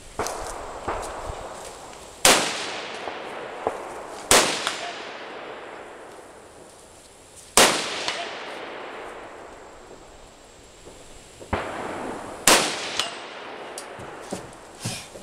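Four loud gunshots a few seconds apart, each followed by a long echo fading away, with fainter sharp knocks and clangs between them.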